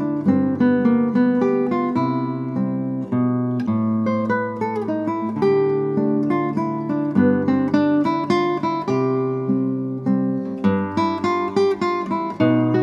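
Solo nylon-string classical guitar fingerpicked, playing a melody over held bass notes in a steady run of plucked notes.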